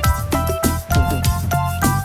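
Upbeat background music with a steady drum beat and bright melody notes.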